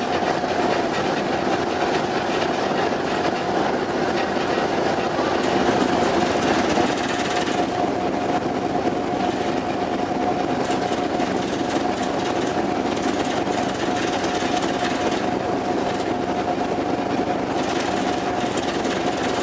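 Steady drone of a ferry under way: the ship's engines running, with a constant hum and a rushing noise over the rumble.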